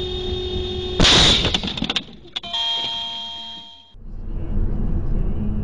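A car horn sounds, then about a second in a loud, sudden crash as two cars collide. A steady electronic beep follows for over a second, then cuts off into the low rumble of a car driving.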